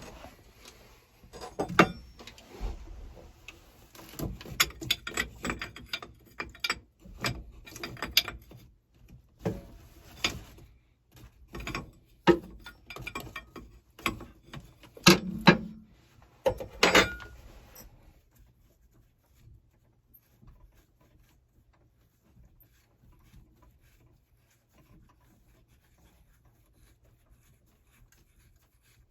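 Hand tools working on a steel hydraulic line fitting: a run of irregular metallic clicks and clanks, some ratchet-like, several of them sharp and loud. It stops after about eighteen seconds and goes almost quiet.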